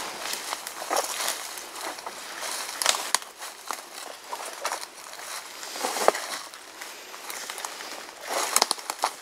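Footsteps crunching through dry leaf litter and brushing through forest undergrowth: uneven steps with a cluster of louder crunches near the end.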